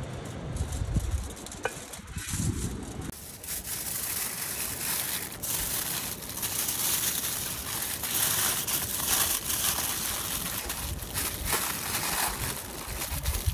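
Aluminium foil being folded and crumpled by hand around a steak, a dense crinkling from about three seconds in. A low rumble comes before the crinkling.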